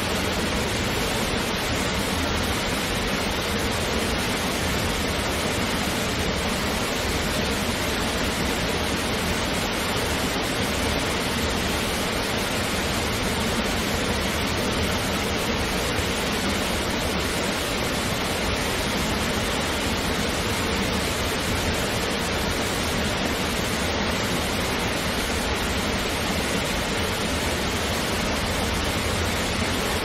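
Waterfall rushing steadily: a dense, even wash of falling water with no breaks or changes.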